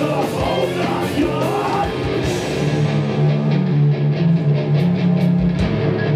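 Live heavy rock band playing loud, with electric guitars and drums. Shouted vocals fill the first couple of seconds, then stop while the band plays on with a low riff and regular cymbal hits.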